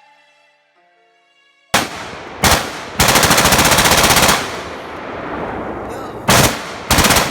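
Rapid gunfire from a rifle fitted with a Rare Breed forced reset trigger: a single shot, a short burst, then a long, very fast string of shots lasting about a second and a half, and two more short bursts near the end.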